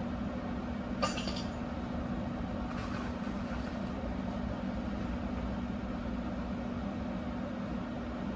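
Steady low hum with a sharp metallic clink about a second in and a fainter clink near three seconds: hand tools and brake parts being handled during a front rotor and pad change.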